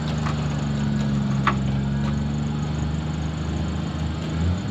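A vehicle engine runs steadily while a winch drags a car with locked-up wheels, with one sharp click about a second and a half in. The low drone shifts just before the end as the winch runs out of cable.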